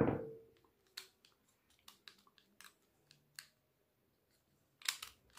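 A metal tool is set down with a sharp tap and a short ringing tone. Then come scattered light clicks and taps as the plastic frame and internal parts of a Samsung Galaxy A51 are handled and pressed into place, with a cluster of louder clicks near the end.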